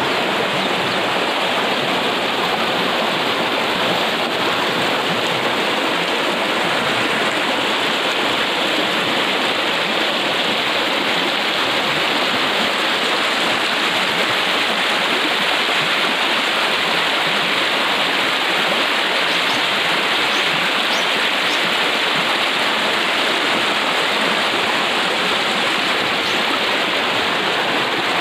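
River water rushing and splashing over rocks in shallow rapids, a loud, steady noise.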